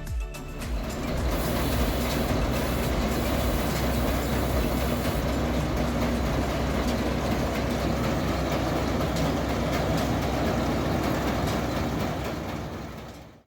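1964 Claas Matador Standard combine harvester running while cutting and threshing barley: a steady, dense mechanical noise with a deep rumble. It cuts off abruptly at the end; music fades out under it in the first second.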